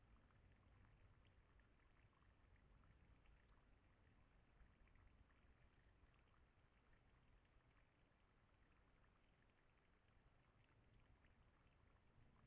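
Near silence: faint steady background noise with scattered faint ticks.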